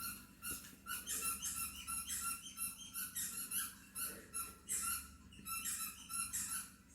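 Recorded squeaking played through a laptop speaker: a rapid, uneven series of short, high squeaks that comes in clusters.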